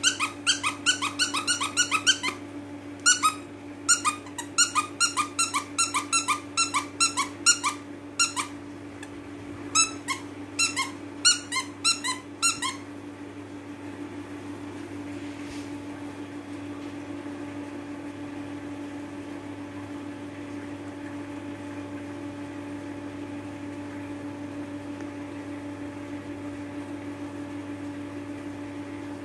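Squeaker in a plush dog toy squeaking in quick runs, several short sharp squeaks a second, as a puppy bites and tugs on it; the squeaking stops about two-thirds of the way in, leaving only a steady low hum.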